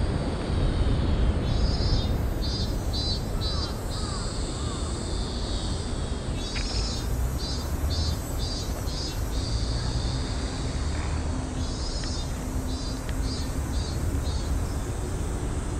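Cicadas calling: a high-pitched song that pulses about twice a second, then runs on as a steady drone for a couple of seconds before pulsing again. A low rumble runs underneath.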